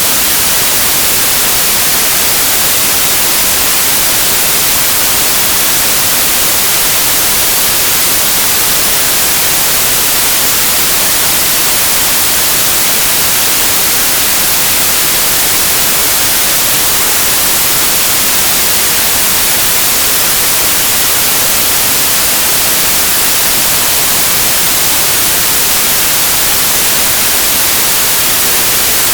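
Steady white noise: an even, unchanging hiss with most of its energy in the high frequencies.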